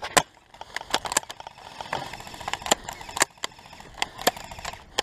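Scattered airsoft gunfire: irregular sharp snaps and clicks of shots and BB hits, a dozen or more in a few seconds.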